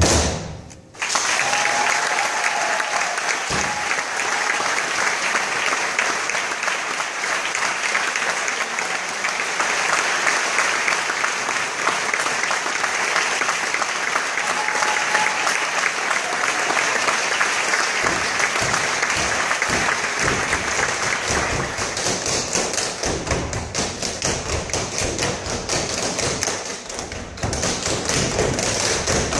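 Audience applause for the first two thirds or so, after a short gap when the music stops. Then tap dancers start tapping without music, their tap shoes striking the wooden stage in quick rhythmic taps and heavier stamps.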